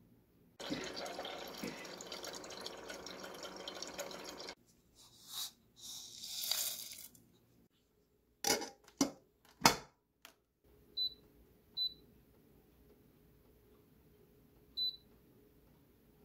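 Water pouring steadily for about four seconds, then a few sharp clinks and knocks of glass being set in place. Then three short high beeps from the glass electric tea kettle's touch-panel buttons, two close together and one a few seconds later.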